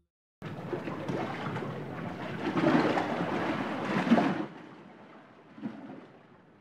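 Rushing outdoor noise starting about half a second in, swelling for a few seconds, then dropping abruptly to a faint hiss about four and a half seconds in.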